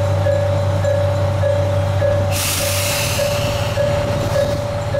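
Kantō Railway KiHa 5000-series diesel railcar idling at the platform, with an electronic warning bell ringing steadily a little under twice a second. About two seconds in, a sharp hiss of compressed air starts and fades, and the engine's hum changes.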